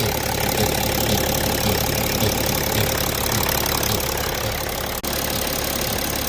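BMW X5 E70 running with a strange, cyclical noise: a low pulse repeating about two to three times a second over a steady engine hum and a faint steady whine. The cause is unknown to the owner. The sound briefly cuts out about five seconds in.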